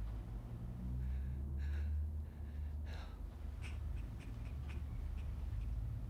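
Quiet room tone with a steady low hum, faint breathing about one to three seconds in, and a few soft ticks after that.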